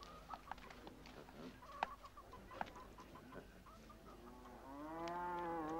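Faint farmyard animal sounds: short scattered calls and clicks, then a long, steady-pitched call starting about four seconds in.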